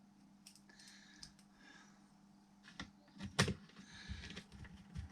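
A few light clicks and knocks of small parts being handled while a car radio unit is put back together, starting about three seconds in, the loudest a moment later.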